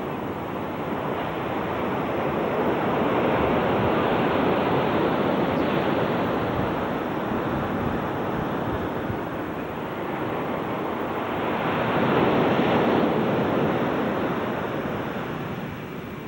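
Ocean surf, waves breaking and washing on the beach, swelling twice: about four seconds in and again near twelve seconds.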